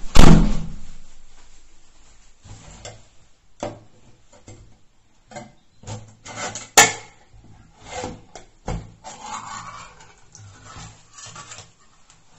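A loud thump right at the start, like a door banging shut, followed by scattered clicks, knocks and short scraping and rubbing sounds as a metal utensil is handled, with one sharp click about seven seconds in and a longer rasping scrape around nine to ten seconds.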